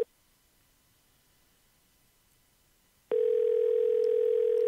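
Telephone ringback tone, the ringing heard by a caller while the other phone rings unanswered. A steady mid-pitched tone comes in about three seconds in and lasts about two seconds, following about three seconds of near silence.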